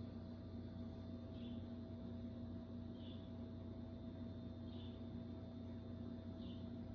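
Faint steady electrical hum, with a faint short high chirp repeating about every second and a half.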